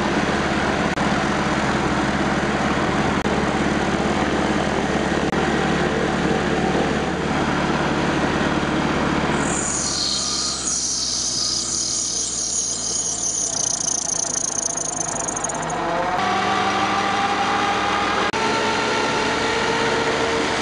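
Gyrocopter engine running steadily in the open cockpit. About ten seconds in, the low engine note drops and a high hiss runs for some six seconds. After that the engine note comes back as steady tones that rise slightly.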